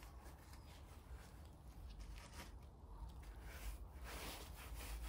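Faint rustling and scratching of hands working the edge of artificial grass against soil under a hedge, getting a little louder in the last second or so.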